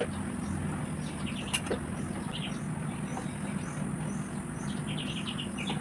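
A steady low hum, with small birds chirping briefly now and then and one small click about a second and a half in.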